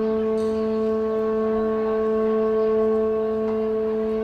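Wind instruments holding one long, steady note.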